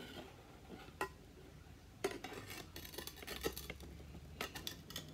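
A slotted metal spatula scraping and prying at a sun-cooked egg stuck to a nonstick frying pan, cooked without butter: a single click about a second in, then a run of short scrapes and clicks from about two seconds in.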